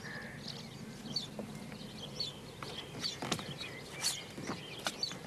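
Small birds chirping in the background, short high calls every half second or so, with a few soft knocks in the second half.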